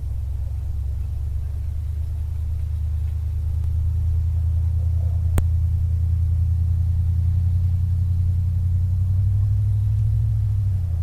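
A 1964 Dodge Custom 880's big-block V8 running at low, steady revs, the note rising slightly partway through. A single sharp click about five seconds in.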